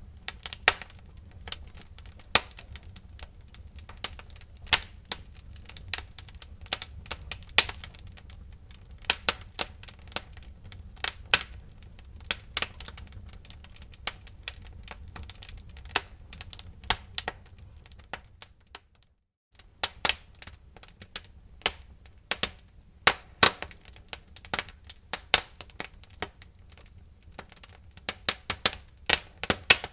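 Wood fire crackling, with irregular sharp pops and snaps over a low steady rumble of the burning fire. The sound cuts out completely for about half a second, about two-thirds of the way in.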